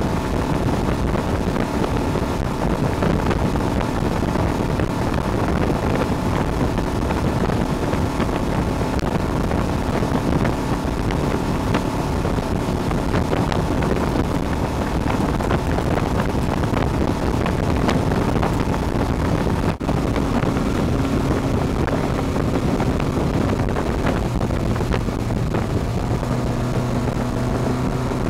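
Motorboat engine running steadily under way while towing a tube, with water rushing in the wake and wind buffeting the microphone. A steadier engine note comes through about four seconds from the end.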